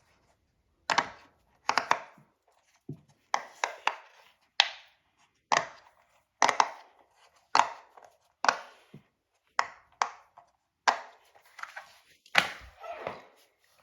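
Bubbles of a silicone pop-it fidget toy being pressed, popping one after another: a string of short, sharp pops at an uneven pace of about one or two a second.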